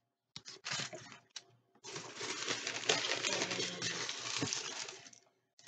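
Packaging being rummaged through and handled: a few light clicks and taps, then about three seconds of continuous crinkly rustling.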